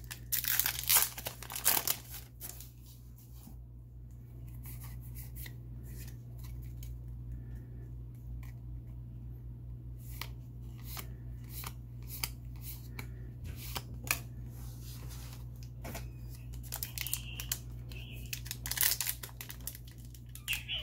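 Foil Yu-Gi-Oh booster pack crinkling and tearing open. Then a quieter stretch of cards being flipped through by hand, with scattered quick ticks, and another foil pack crinkling and tearing near the end. A steady low hum runs underneath.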